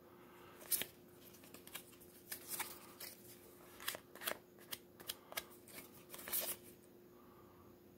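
Magic: The Gathering trading cards being slid and flicked one at a time from the front of a hand-held stack to the back: a dozen or so faint, irregular card flicks and slides that stop about a second before the end.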